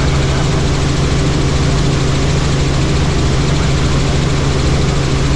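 Helicopter in flight: steady rotor and engine drone with a constant low hum.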